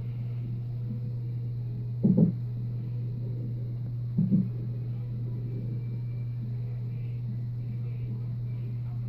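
Hiccups of a 36-week unborn baby: two short, dull thumps about two seconds apart, over a steady low hum.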